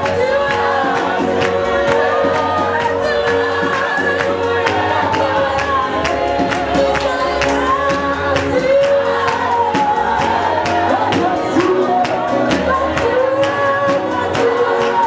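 Live gospel music: a lead singer with a group singing along over a steady beat, with hand-clapping.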